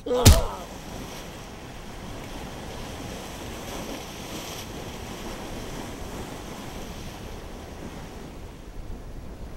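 Waves breaking and washing among large rocks, a steady rush of water. It opens with a person's short, loud yell, falling in pitch.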